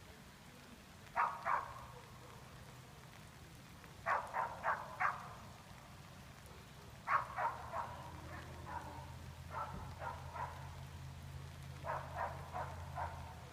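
A dog barking from a distance in quick runs of two to four barks, five runs in all, over a steady low hum.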